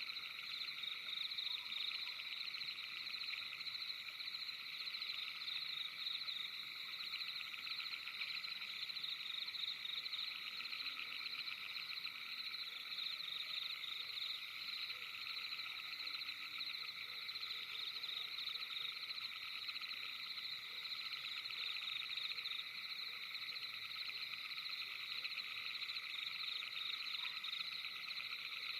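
A steady night chorus of many frogs calling at once, a dense, unbroken trilling that never pauses.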